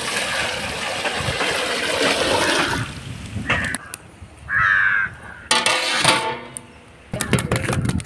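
Water being poured into a cooking pot, a steady rush that stops about three seconds in. Then a crow caws twice.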